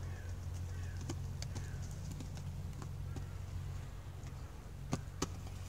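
Inline skates clicking and clacking on concrete, a few scattered sharp clicks with two louder ones near the end, over a steady low hum.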